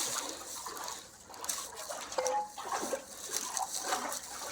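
Shallow creek water trickling and splashing as it is stirred up.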